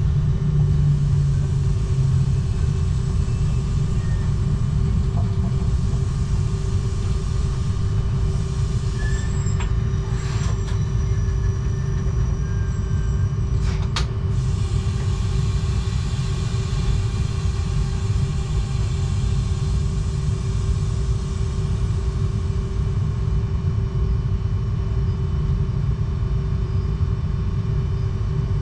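Z 20500 double-deck electric train running, heard from the driver's cab: a steady rumble of the wheels on the rails with a steady hum over it, and a few sharp clicks about ten and fourteen seconds in.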